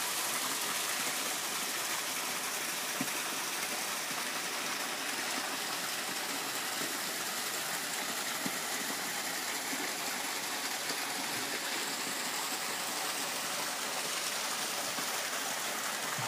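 Water running steadily down a small garden waterfall, spilling past a water wheel and wooden flume onto rocks into a pool: an even, unbroken splashing hiss.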